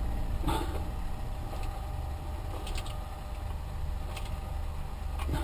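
A 12-volt PC cooling fan running with a steady low hum and a faint whirr, still making a noise after being moved off its framework. The owner reckons it is a bad fan. A few light clicks come from handling its mount.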